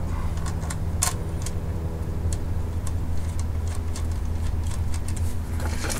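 A vehicle engine idling steadily, with a few light metal clicks from the shifter linkage being handled, the clearest about a second in.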